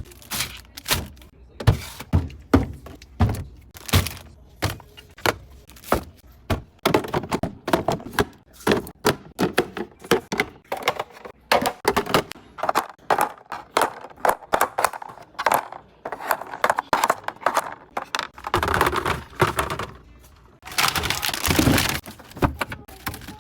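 Objects being handled and set down during fridge cleaning: a quick, irregular run of knocks, clicks and clatters, with two longer noisy stretches near the end.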